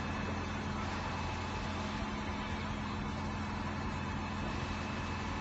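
Truck-mounted mobile crane's diesel engine running steadily with a low hum while it lifts a motor boat.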